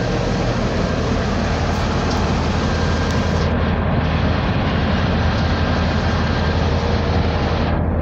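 Diesel engine of a 2004 Blue Bird All American bus idling steadily, heard from the driver's seat, under the steady rush of its air conditioning blowing. The airy rush falls away just before the end.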